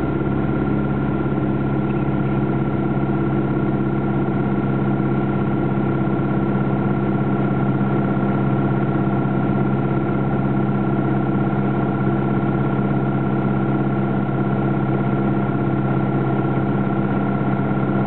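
Light aircraft's engine and propeller droning steadily, heard from inside the cockpit, with no change in pitch, on approach to landing.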